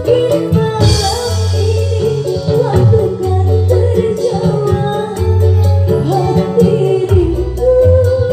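Live dangdut band played loud through a large PA sound system: a woman singing over bass, keyboard, guitars and a steady drum beat.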